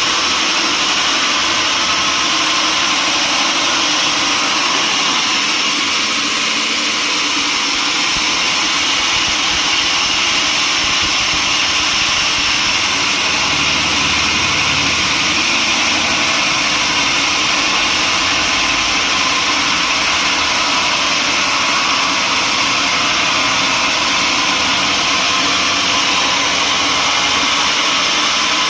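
Sawmill machinery running steadily, a loud, even mechanical noise without breaks or changes in pitch.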